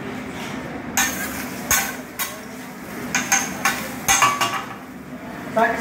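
Metal spatula striking and scraping on a hibachi griddle, chopping up an egg: a run of sharp, uneven metallic clacks starting about a second in, over a steady hum.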